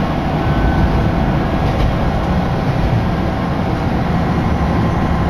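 Diesel railcar running along the line, heard from inside the car: a steady engine drone over the rumble of the wheels on the track.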